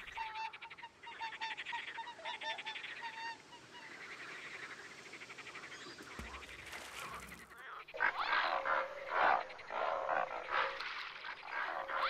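Wild waterbirds calling, a dense mix of calls that is faint at first and grows much louder about eight seconds in.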